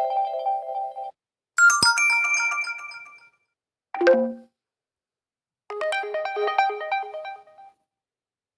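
OPPO A54 phone ringtones and alert tones playing one after another, each a short electronic chiming melody cut off cleanly. A tune ends about a second in, a bright short tune follows, then a quick falling run of notes, and another short chiming tune stops about three-quarters of the way through.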